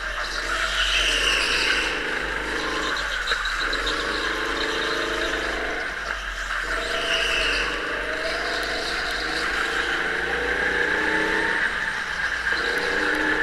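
Go-kart engine running under throttle, its note falling off and picking up again about three times as the kart slows for corners and accelerates out. Tyres squeal briefly twice, about a second in and about seven seconds in.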